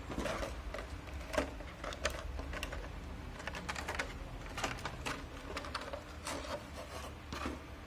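Plastic packaging being handled as an action figure is worked out of its plastic tray, with scattered irregular clicks and crinkles over a low rustle.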